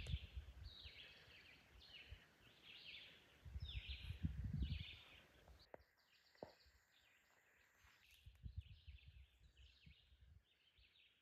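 Faint outdoor quiet with a bird's short high chirps repeated evenly, about two a second. A brief low rumble comes about four seconds in.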